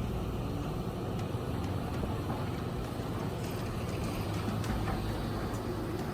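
Heavy earthmoving machine's engine running steadily, a low continuous rumble.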